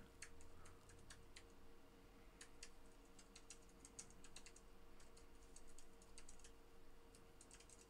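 Faint, irregular typing on a computer keyboard, clicks coming in loose clusters a few per second, over a low steady hum.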